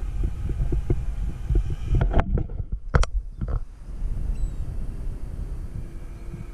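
Low, irregular rumble and buffeting on the microphone aboard an open fishing boat, with a few sharp knocks about two and three seconds in.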